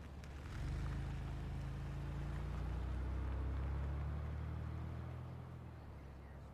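A low hum made of a few steady deep tones, swelling in about half a second in and fading away over the last couple of seconds.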